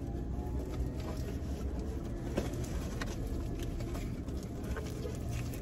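Foil burger wrappers crinkling and rustling in the hands, with a few sharp crackles, over a steady low hum in a car cabin.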